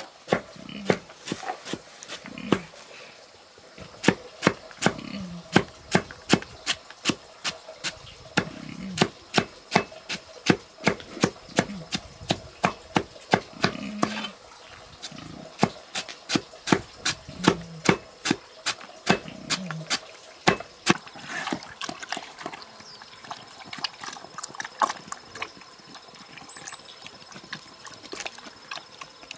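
Steady, rapid chopping: a long knife blade cutting through a soft white plant stalk and striking a wooden board, about two to three strokes a second, thinning out near the end.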